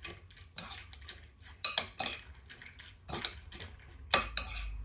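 A utensil clinking and scraping against a bowl while a puppy's dinner of egg, puree, meat and kibble is stirred, with irregular clinks, the loudest about a second and a half in.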